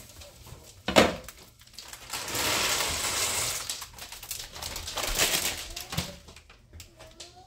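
Dry pasta being poured from a plastic bag into a pot of boiling water: a rattling rush of pasta and crinkling bag, with a second, shorter pour a couple of seconds later. A sharp knock comes about a second in and another near the end.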